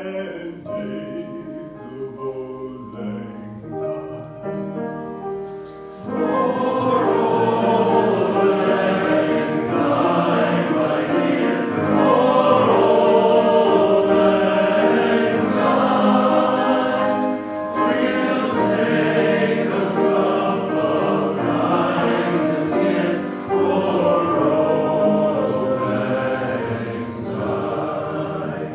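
Choir singing with musical accompaniment. It is quieter at first and becomes fuller and louder about six seconds in.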